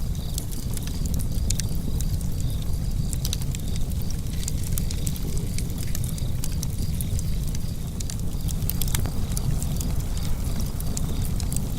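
Wood fire burning in a fireplace: many small, sharp crackles and pops at irregular intervals over a steady low rumble of flames.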